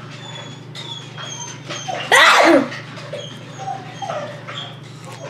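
Pet dog whining in short, high whines, with one louder yelp about two seconds in.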